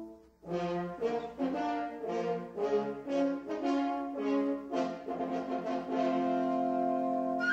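Orchestral film-score music led by brass with French horns: after a brief pause it plays a quick run of short detached notes, then settles into a long held chord.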